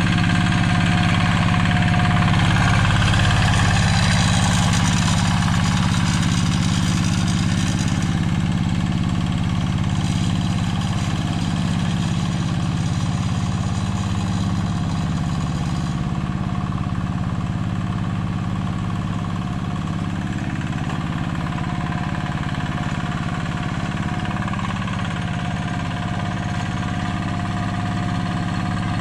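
Yanmar two-wheel hand tractor's diesel engine running steadily under load as it plows a flooded rice paddy, growing slightly fainter as it moves away.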